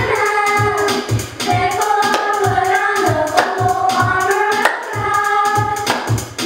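A recorded Christian song: singing voices over a steady beat of about two pulses a second.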